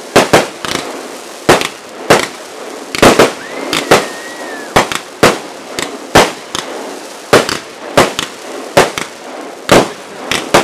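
Aerial fireworks bursting one after another: loud, sharp bangs about one or two a second, some in quick clusters of two or three.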